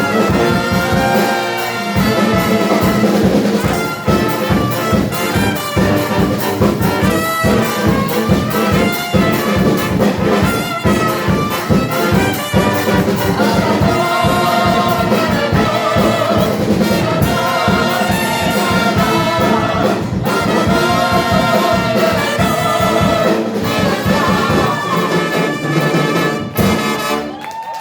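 Instrumental music led by brass, trumpets and trombones, over a steady, fast drum beat, winding down just before the end.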